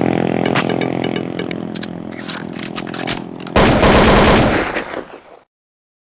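Electronic background music fading, cut by a sudden loud burst of noise a little past halfway that lasts under two seconds and dies away into silence.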